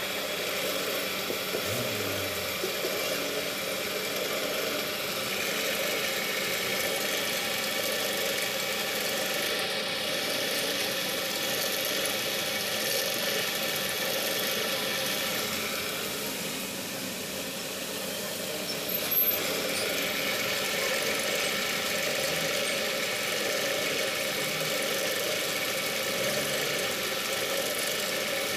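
Pillar drill running steadily with its bit cutting through the friction lining of a truck clutch plate, a constant motor hum with a grinding, squealing edge. It eases off briefly about two-thirds of the way through, then a sharp click and the drilling goes on.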